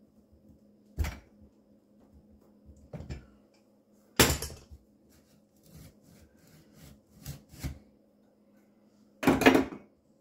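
Knocks and clatters of sink drain pipe pieces being worked loose and set down in the cabinet under a kitchen sink, with a loud knock about four seconds in and the loudest clatter near the end.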